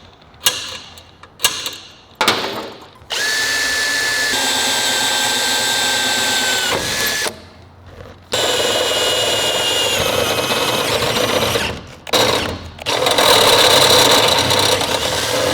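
Electric drill boring 1/2-inch holes through a steel motorcycle frame tube for rosette welds. It starts with a few short bursts, then runs in three long steady stretches with a whine whose pitch dips slightly as the bit bites.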